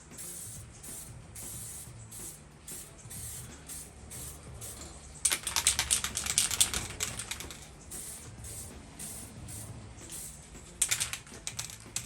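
Aerosol spray paint can being shaken hard, its mixing ball rattling rapidly for about two seconds starting five seconds in, and again briefly near the end. Between the shakes comes a faint, evenly pulsing hiss.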